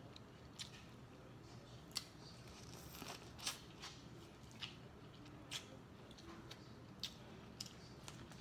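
Close-miked eating sounds: about eight sharp, irregularly spaced clicks and crunches as corn on the cob is bitten and chewed.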